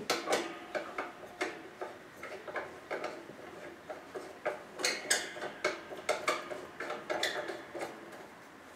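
Old spring-loaded scissor-arm desk microphone stand being handled and adjusted. It gives an irregular run of metal clicks and knocks, each with a brief metallic ringing from its springs.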